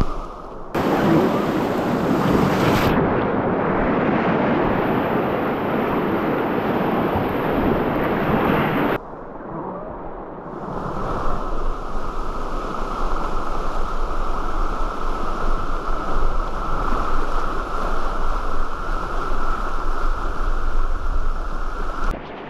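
Loud, steady rush of river whitewater rapids around a kayak, mixed with wind noise on the microphone. The rush drops suddenly about nine seconds in and builds back up a couple of seconds later.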